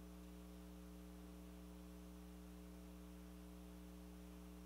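Near silence, with a steady low electrical hum.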